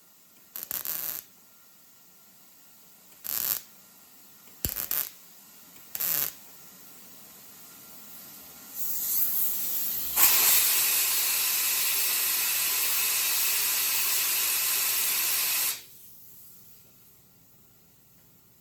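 Four short bursts of noise, then a compressed-air blow gun hissing steadily for about six seconds and cutting off. The air is cooling the fresh weld spot on the thin hood panel so it stays flat.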